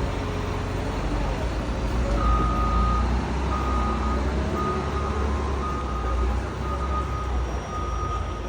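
A vehicle's reversing alarm beeping about once a second, starting about two seconds in, over a steady low engine rumble.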